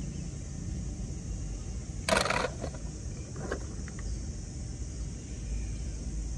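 Low steady outdoor rumble with a short scraping rustle about two seconds in and a few faint clicks after it, from plastic toy cars being handled over a pebble path.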